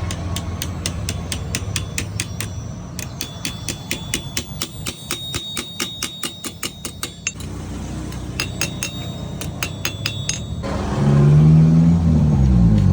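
Blacksmith's hammer striking metal in quick, ringing blows, about three to four a second, pausing briefly about seven seconds in, over a steady engine hum. Near the end an engine revs up and back down, louder than the hammering.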